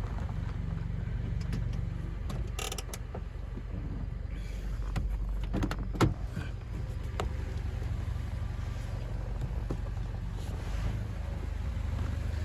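A vehicle's engine running steadily, a low even hum, with a few short clicks or knocks about a third and halfway in.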